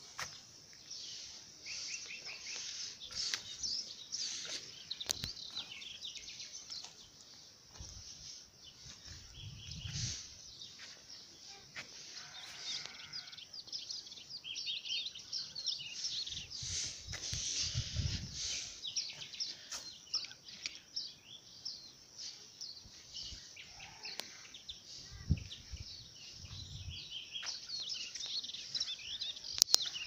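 Small birds chirping and singing busily, many short high calls overlapping throughout. A few low rumbles come and go, and there are several sharp clicks near the end.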